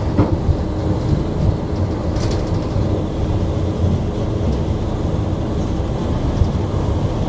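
Locomotive moving, heard from its cab: a steady low rumble of the running train, with a couple of brief sharper sounds early on top of it.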